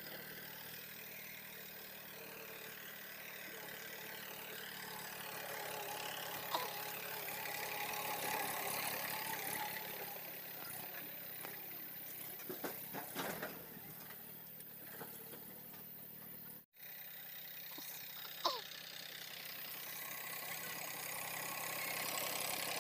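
Massey Ferguson 1035 DI tractor's three-cylinder diesel engine running steadily at low revs as it pulls its trailer along a rough track, with a few short clatters about halfway through. It grows louder near the end as the tractor comes close.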